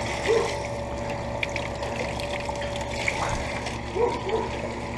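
Water splashing and trickling in an air-conditioner condenser unit being cleaned, over the steady hum of a second central air conditioner, a York, running.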